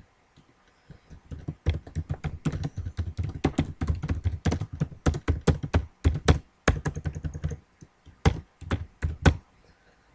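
Computer keyboard typing: a quick run of keystrokes, a short pause, then a few single key presses near the end.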